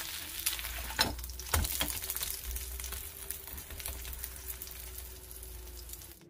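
Minari (water parsley) and shrimp pancake sizzling and crackling in oil in a nonstick frying pan, with a wooden spatula knocking against the pan twice about a second in.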